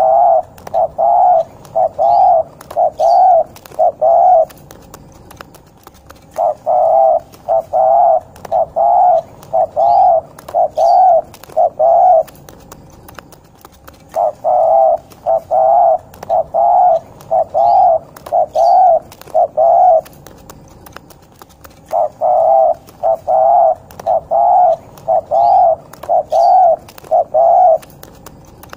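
Derkuku (island collared dove) giving its rolling, throaty 'ngorok' coo. Runs of about eight quick coos last some six seconds each and repeat after short pauses, a call used to lure other derkuku into calling.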